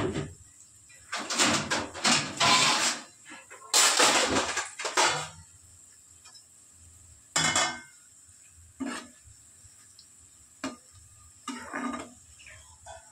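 Metal utensil scraping and knocking against a cooking pan in a run of clattering bursts over the first five seconds, then several single knocks a second or two apart.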